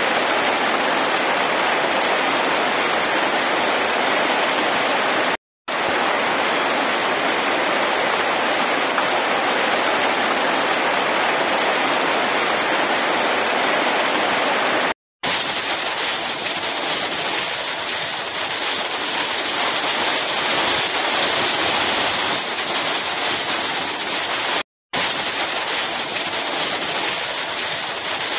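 Heavy rain pouring steadily in a rainstorm. The sound cuts out completely for a split second three times.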